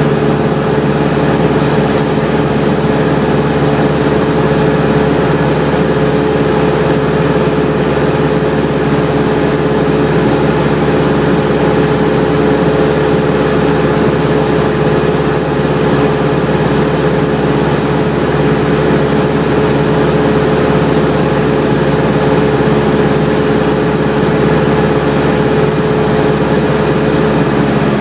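Single-engine Cessna's piston engine and propeller running at a steady power setting, a constant drone with a held tone.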